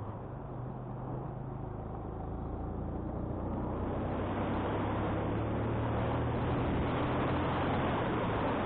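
Motorcycle engine running steadily while pulling uphill, under wind rushing over the microphone. The rushing grows louder about halfway through.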